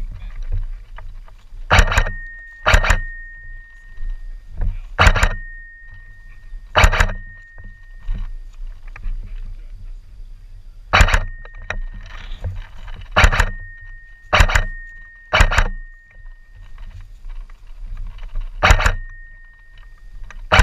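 Airsoft rifle firing single shots, about nine sharp cracks at irregular gaps of one to four seconds, a thin high tone hanging on for a second or two after several of them, over a steady low rumble of handling and movement.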